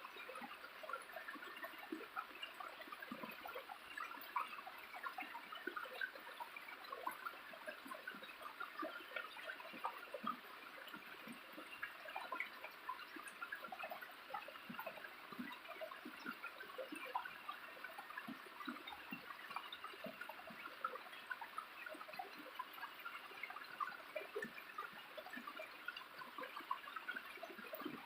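Small waterfall: water splashing and trickling steadily as a busy patter of many small drops and splashes.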